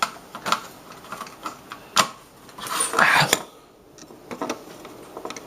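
Hard plastic keyboard parts being handled: scattered clicks and rattles, with a short rustle about three seconds in.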